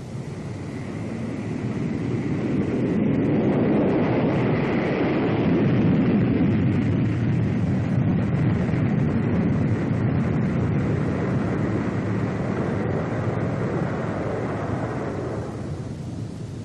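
Boeing B-47 Stratojet jet bomber roaring on takeoff, with a faint high whine. The roar swells over the first few seconds, holds, then fades away near the end, like an aircraft passing.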